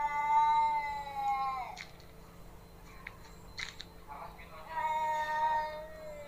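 Two cats in a standoff yowling at each other, a threat display before a fight: one long drawn-out yowl at the start, then a few faint clicks, then a second long yowl starting about halfway through that slides lower near the end.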